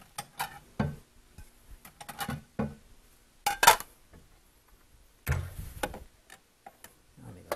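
Kitchen handling noises: a wall cabinet being opened and a plate taken out and set on the counter, heard as a string of separate knocks and clinks, the loudest about three and a half seconds in and a duller thump just past the five-second mark.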